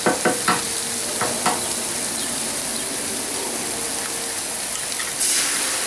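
Food sizzling on the hot steel top of a Blackstone 17-inch propane griddle, with a few sharp taps in the first second and a half. About five seconds in, the sizzle jumps louder as a cracked egg lands on the griddle.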